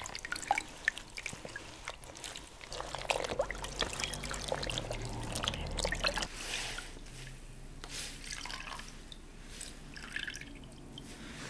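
Water splashing and dripping in a plastic basin as hands wash feet and legs with a wet cloth, in small irregular splashes and drips.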